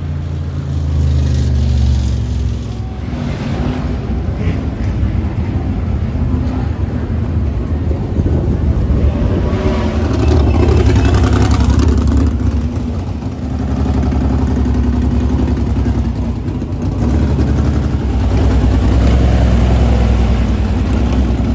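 USAC Silver Crown race car engines running on a dirt mile track. The sound swells and fades several times as the cars pass and accelerate.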